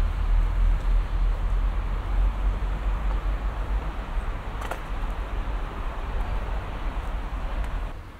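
Outdoor city street noise: a strong, steady low rumble under an even hiss, with a single sharp click about four and a half seconds in.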